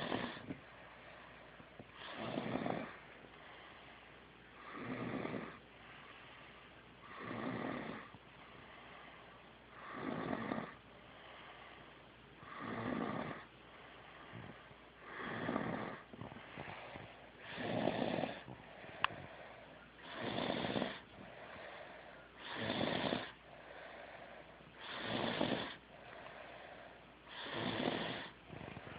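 Snoring in a steady rhythm: about a dozen long snores, one every two and a half seconds, with quiet breathing between them.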